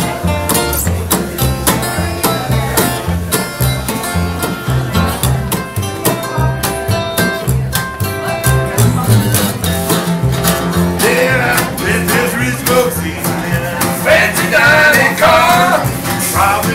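Live acoustic duo: a Guild acoustic guitar picking a lead over a plucked upright double bass line. About eleven seconds in, a man's voice starts singing.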